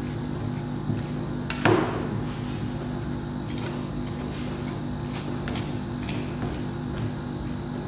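Metal spatulas scraping and tapping on a stainless-steel pan as a thin paste is spread and scored, in short scrapes and clicks with one sharper knock about two seconds in. A steady low hum runs underneath.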